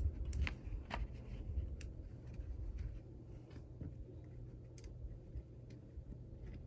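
Small magnetic building blocks clicking together now and then as pieces are fitted one at a time, over a low handling rumble.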